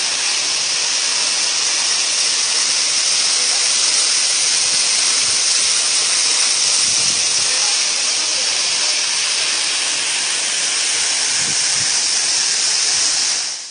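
Water pouring down a waterfall about 75 m high, a loud, steady rushing hiss that fades out at the very end.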